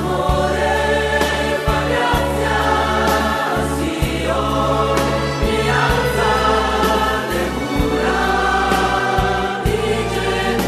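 Choral music: a choir singing held notes over a steady low accompaniment.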